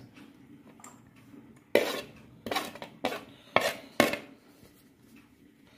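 Steel spoon knocking and scraping against a ceramic plate and a steel bowl while chopped onion is tipped off into the mince: five sharp clinks about half a second apart, starting near two seconds in.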